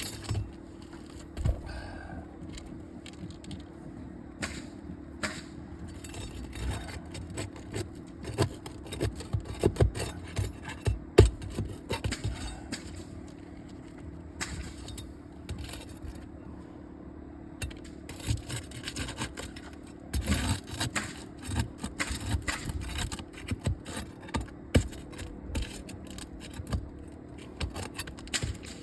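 Irregular scraping, clicking and knocking of a tool working against old 3-tab asphalt roof shingles as one shingle is worked loose for removal, over a steady low hum.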